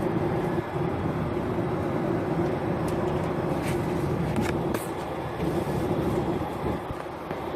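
Airliner cabin noise: the steady drone of the engines and air rush, with a constant low hum and a few faint ticks.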